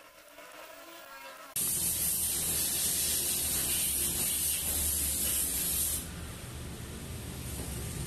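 A TIG torch's argon shielding gas hissing steadily over a low hum after the arc has been stopped (gas post-flow over the hot weld). The hiss cuts in suddenly about a second and a half in and drops to a quieter hiss about six seconds in.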